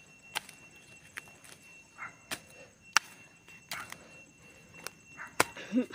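A small hand hoe chopping into soil and dry weed roots and stems, giving irregular sharp strikes roughly once a second.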